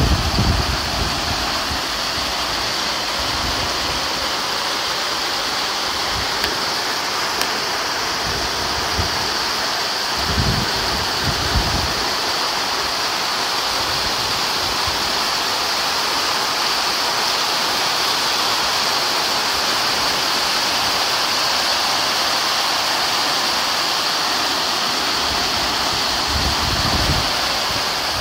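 Rain falling steadily, a dense, even hiss, with brief low rumbles of wind on the microphone around ten seconds in and again near the end.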